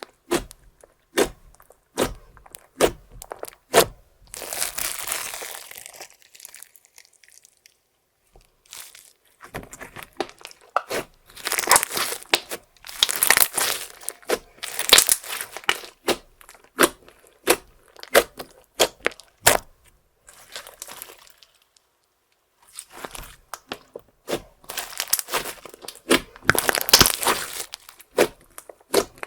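Slime with makeup and glitter mixed in, being squished, stretched and folded by hand. It gives sharp sticky pops and clicks, with stretches of wet crackling between short pauses.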